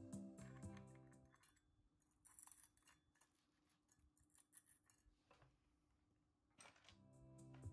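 Near silence with a few faint metallic clicks and clinks as a washer and small parts are fitted onto a scooter's belt-drive pulley shaft. Background music fades out over the first second and a half and comes back in near the end.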